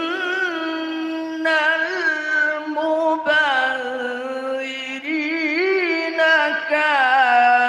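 A man recites the Qur'an in melodic tilawah style, amplified through a hand-held microphone. He sings long held notes with wavering ornaments, pausing for breath briefly a few times.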